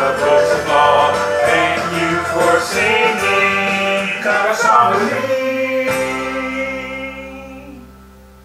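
The end of a sung song with instrumental backing; about six seconds in it settles on a held final chord that slowly fades away.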